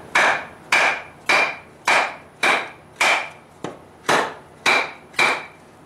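Wooden mallet striking the back of a hand-forged steel froe blade, driving it into a piece of firewood to split kindling. About nine even blows, roughly two a second, each with a short metallic ring; they stop near the end.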